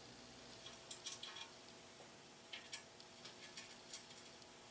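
Faint, scattered metal clicks and light taps as the parts of a model traction engine's horn plate assembly are handled and fitted together: a small cluster about a second in, a couple more midway and a sharper click near the end, over quiet room tone.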